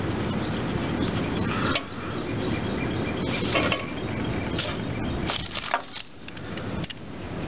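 Hand work under a lawn tractor fitting a replacement brake/clutch pedal safety switch: a steady rustling rub close to the microphone, with clusters of light metal clicks and clinks about halfway through and again a little later.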